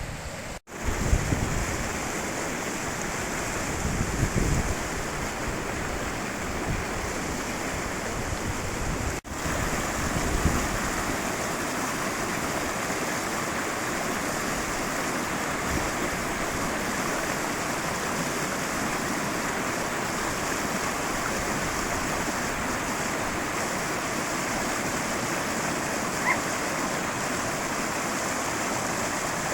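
High-mountain river rushing steadily over rocks. Low gusts of wind buffet the microphone in the first ten seconds, and the sound cuts out for an instant twice early on.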